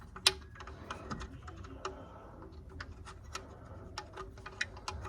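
Irregular light clicks and taps of hardware and hand tools being handled as a trimmed bracket or fastener is fitted under the car, the sharpest click about a quarter of a second in.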